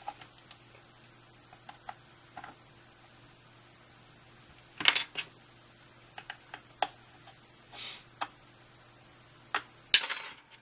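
Sharp clicks and light scrapes as a third-generation iPod's hard plastic case is pried apart with a razor blade and a plastic pry tool. There is a louder cluster of clicks about five seconds in and a short clatter near the end.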